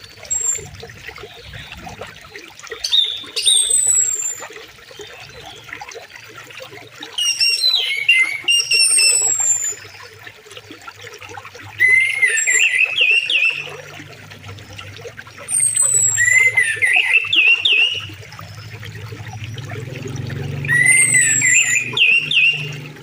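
River water running steadily, with a songbird singing short whistled phrases over it about every four seconds, each with a high falling whistle. A deeper rush of water swells toward the end.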